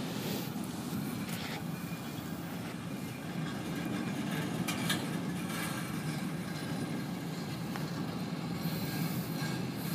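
Freight train's intermodal container cars rolling past in a steady rumble, with a few faint wheel clicks, under the hiss of heavy rain.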